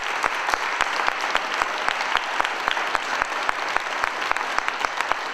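Crowd applauding: dense, many-handed clapping that eases off slightly near the end.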